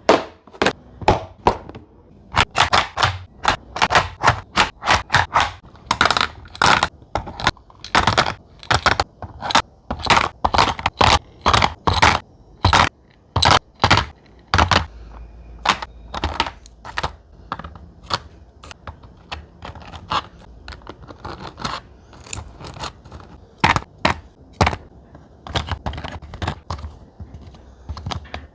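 Candies and snacks being dropped and set into the compartments of a plastic snackle box: a long run of irregular clicks, thunks and short scrapes.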